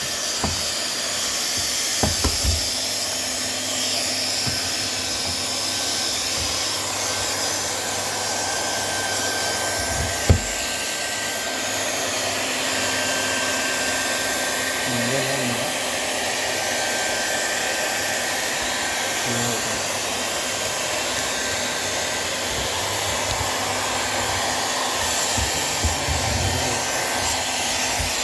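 Automatic HDPE sheet welding machine running, its hot-air blower giving a steady hiss, with a sharp knock about ten seconds in and a few lighter knocks.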